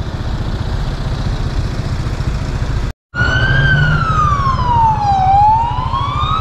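A vehicle engine runs with a low rumble. After a sudden break about halfway through, an emergency vehicle's siren wails over it, its pitch falling slowly for about two seconds and then rising again.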